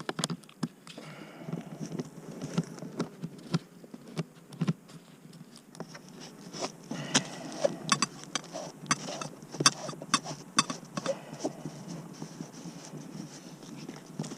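A series of sharp clicks, knocks and crunches, spaced about every half second at first and coming thicker and louder in the middle of the stretch.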